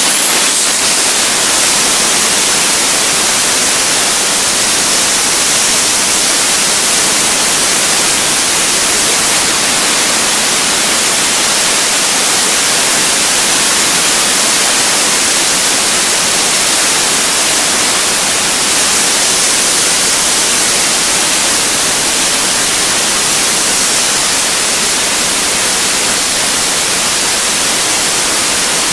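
RC model jet turbine engine running at high power: a loud, steady rushing noise with a high whistle that climbs in pitch over the first second or so, then holds steady.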